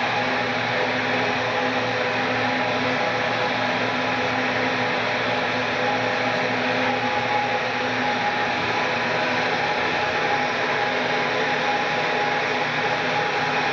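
Electric machinery running steadily: a constant motor whir with a faint, even hum that does not change.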